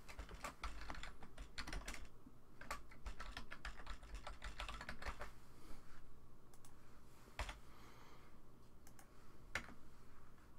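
Typing on a computer keyboard: quick runs of keystrokes over the first five seconds or so, then a few single clicks further apart.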